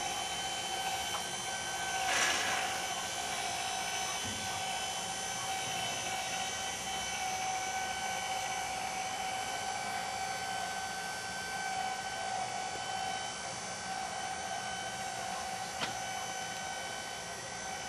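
Small electric aircraft tug's motor whining steadily as it tows a biplane by its tailwheel, with a brief rattle about two seconds in and a small click near the end.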